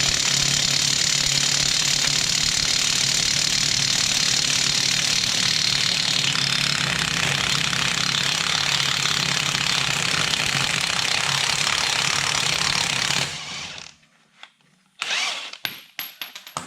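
Cordless DeWalt impact wrench hammering without pause on a stubborn truck lug nut, too weak to break it loose quickly; it stops suddenly about thirteen seconds in. A few short metal clinks follow near the end.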